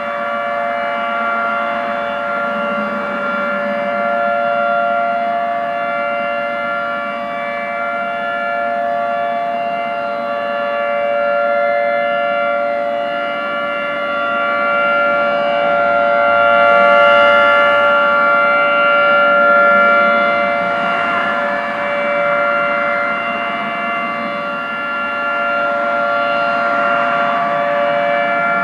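Federal Signal 2T22 dual-tone outdoor warning siren sounding a steady alert, holding a chord of two pitches with no rise or fall. Its loudness swells and fades every several seconds as the siren head rotates.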